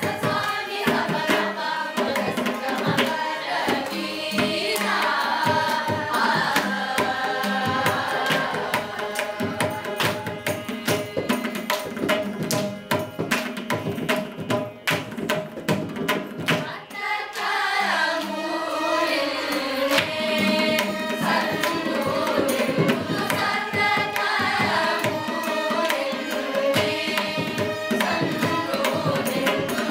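Carnatic ensemble music: a group singing in unison, accompanied by violins and mridangam strokes. For a few seconds about halfway through the voices drop away, leaving mostly the drumming, then the group singing returns.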